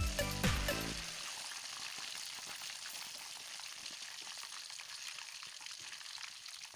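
Golden-brown breaded chicken pieces frying in hot oil in a wok: a steady, even sizzle. Background music plays over it for about the first second, then stops.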